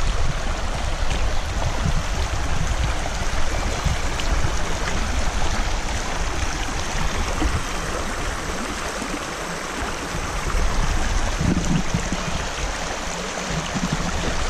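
Sheepscot River water running in a steady rush, with a low rumble through roughly the first half.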